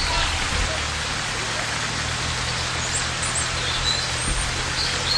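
Steady rush of running water, with a few short high bird chirps over it.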